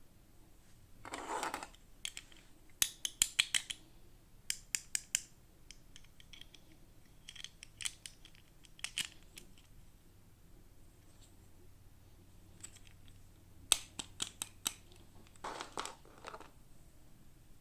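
Miniature plastic toys and their packaging being handled: quick runs of sharp clicks and taps, with two brief rustles of packaging, one about a second in and one near the end.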